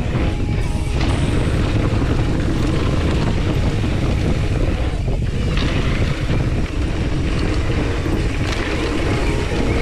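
Steady rush of wind buffeting the microphone while riding a mountain bike on a trail.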